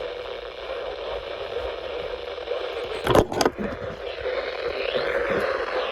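Radio static: a steady hiss broken by a loud crackle about three seconds in.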